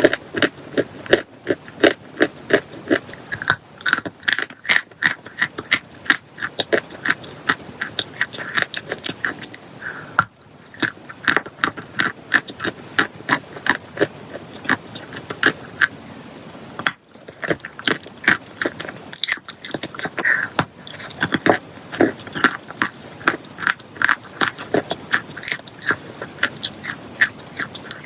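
Chalk and clay being bitten and chewed close to the microphone: a steady run of sharp, crisp crunches, several a second, with two brief breaks.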